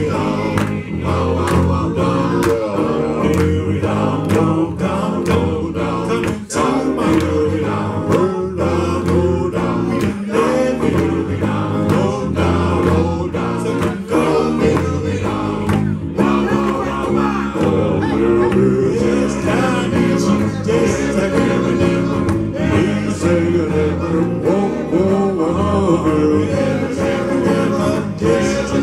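Live vocal-group music: several men singing into microphones over two electric guitars with a steady beat.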